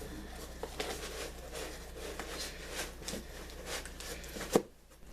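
Rustling of packing material and small handling clicks as ceramic mugs are unpacked from a box, with one sharp knock about four and a half seconds in.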